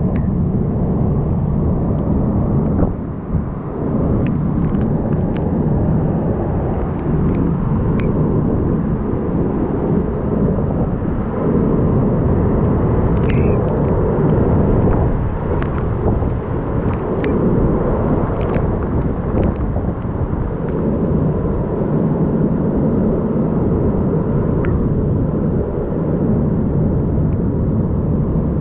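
Hurricane eyewall wind and driving rain blowing steadily and loudly, heaviest in the low range, with scattered sharp ticks throughout.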